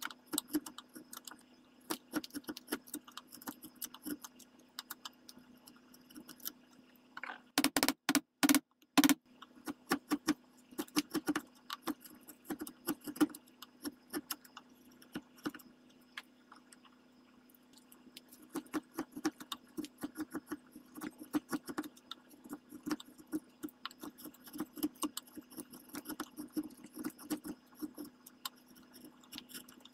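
Bench chisel paring walnut by hand: a run of short scraping, crackling cuts as shavings lift off the wood. A few louder sharp knocks come quickly together about eight seconds in.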